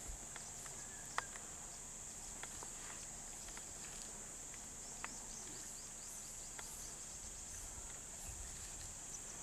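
Steady high-pitched drone of insects in grassland, with a few faint sharp ticks scattered through it, the loudest about a second in.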